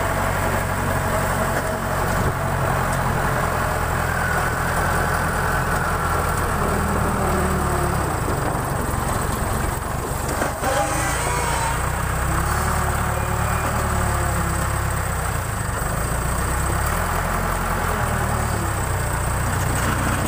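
Backhoe loader's diesel engine running steadily, its pitch shifting a little a few times as it works.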